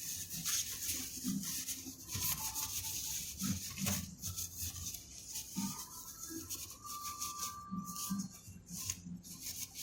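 Irregular rubbing and scraping with scattered small clicks, the sound of hands working on small parts.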